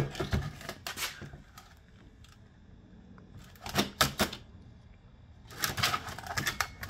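Clusters of light knocks and clatter as a freshly welded steel pallet-buster head is handled and turned over on a plastic folding table: three bursts with quiet between.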